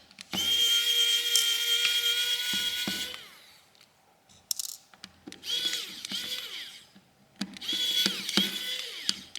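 Electric precision screwdriver whining in three runs, a long one and then two shorter ones, as it backs out the small screws holding a smartphone's midframe. Its pitch sags as each run winds down, and a few light clicks fall between the runs.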